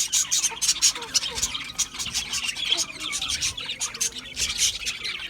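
Budgerigars chirping and chattering in a rapid, continuous stream of high notes and quick clicks.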